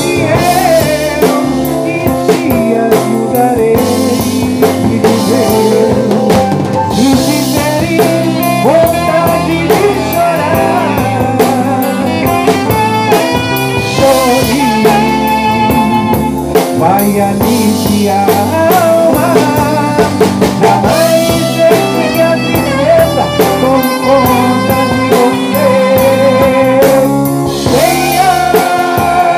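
Gospel song: a man singing into a microphone over backing music with drums and guitar.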